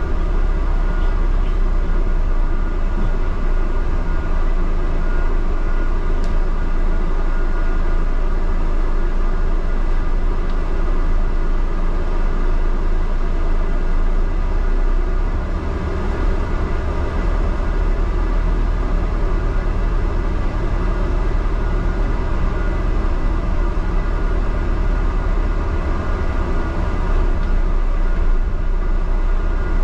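Cabin noise inside a London double-decker bus driving: a steady low rumble of engine and road with a constant hum, easing off a little about halfway through and building again near the end.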